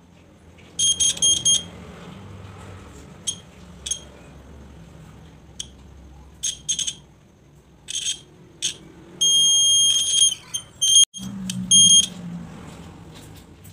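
Piezo buzzer of a homemade buzz-wire game beeping in short, irregular bursts, each time the hand-held wire loop touches the bent wire course and closes the circuit. It is a single high tone, with one longer beep of about a second and a half near the end.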